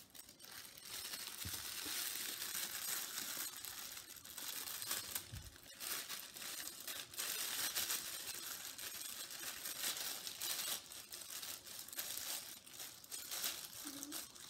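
Thin plastic crinkling and rustling as disposable gloves are handled and pulled on, with a steady run of small crackles.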